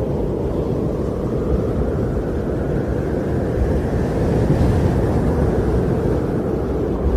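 Wind blowing steadily as a low rumbling rush that swells in a gust around the middle.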